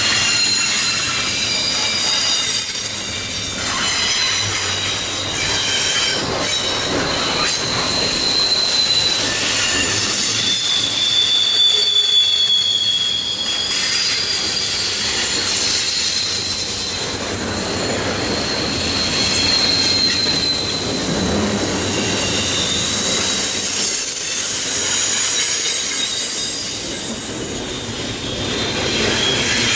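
Freight train cars of CN Q102 rolling past, their steel wheels squealing on the rails in several high, wavering tones that shift and overlap, over a steady rumble and clatter of the train. The squeal is the sign of wheel flanges grinding against the rail on a sharp curve.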